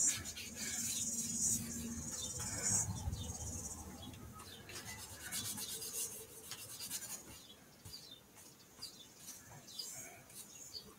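A hand rubbing and smearing paint across a painted paper journal page: scratchy rubbing strokes, loudest in the first three seconds, then softer and more scattered.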